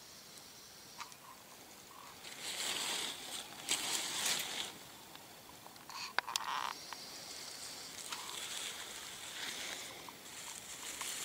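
Rustling of dry fallen leaves, loudest from about two to four and a half seconds in, with a couple of sharp clicks about six seconds in and softer rustling after.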